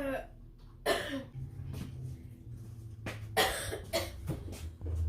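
A person coughing: a sharp cough about a second in, then more coughs a little past three seconds.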